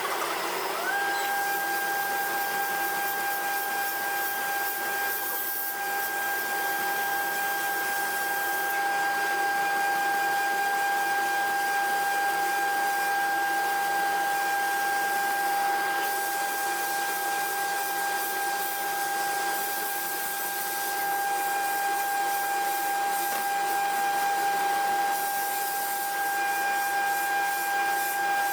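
CNC milling machine rough-cutting a steel mold component: a steady high spindle whine over a dense hiss of cutting, with the whine setting in about a second in.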